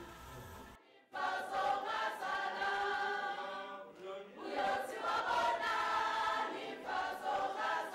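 A crowd of men and women singing together, unaccompanied and choir-like, starting about a second in, with short breaks between phrases.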